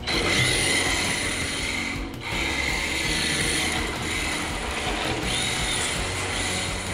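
RC car's motor and geared drivetrain whining as it drives across a concrete floor, with a brief dip about two seconds in.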